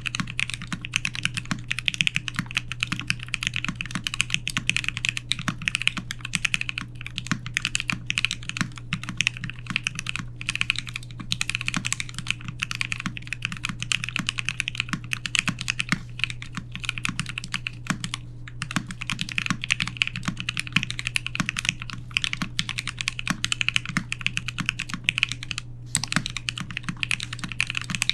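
Continuous typing on a custom E-White Sunsetter R1 mechanical keyboard with lubed Marshmallow switches, a stainless steel plate with Poron plate foam, and PBT keycaps: a steady, dense stream of keystrokes, with a faint low hum underneath.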